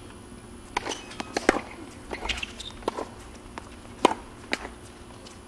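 Tennis rally on a hard court: a series of sharp pops from the racquets striking the ball and the ball bouncing. There are about six over the few seconds, the loudest about one and a half seconds in and again just after four seconds.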